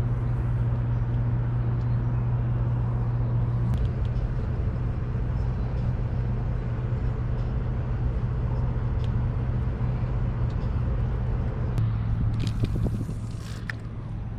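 Steady low hum of an idling vehicle engine, with a few light clicks and rattles near the end.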